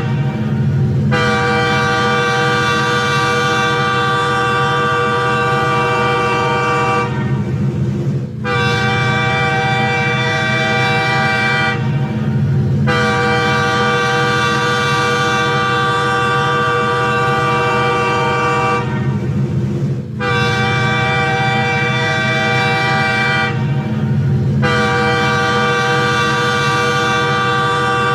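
Train horn sounding long, steady blasts over the low rumble of the train, the horn tones breaking or shifting briefly a few times.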